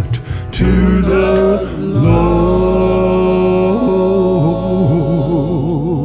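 Gospel music: voices hold long notes with a strong, even vibrato over a low sustained bass note that comes in about two seconds in.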